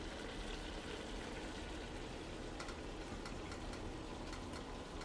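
Metal serving spoon scooping keema out of a stainless steel pot, with a few faint clicks of the spoon against the pot over a steady low hiss.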